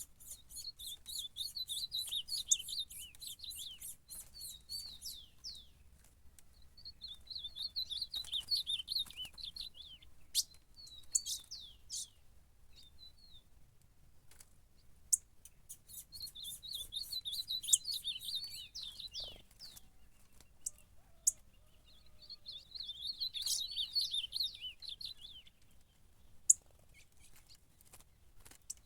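Ultramarine grosbeak (azulão) singing in repeated bouts of fast, high warbling, four phrases of a few seconds each with pauses between, as a territorial challenge to a rival. Short sharp chips and clicks come in between the phrases.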